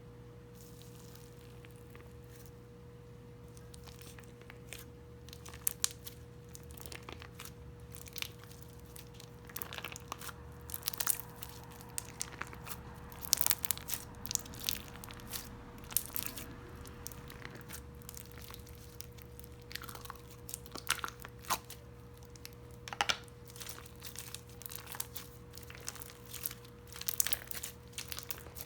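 Hands squishing and stretching a textured slime with small square blocks mixed in, giving irregular clicks and crackles, sparse for the first few seconds and then frequent. A faint steady electrical hum runs underneath.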